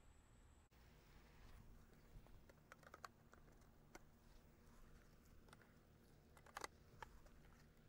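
Faint scattered clicks and taps as stacking stakes are pushed into the snap-lock brackets at the joints of a composite raised garden bed frame, over a quiet low hum.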